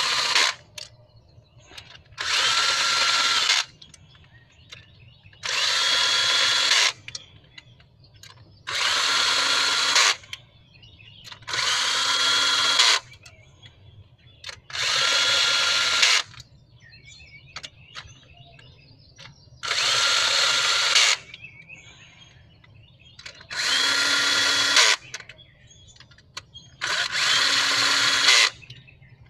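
A handheld power drill/driver running cylinder head bolts down into the block, one short run of about a second per bolt, nine runs with pauses between them and a longer pause about two-thirds of the way through. The bolts are being snugged down evenly before final torquing with a torque wrench.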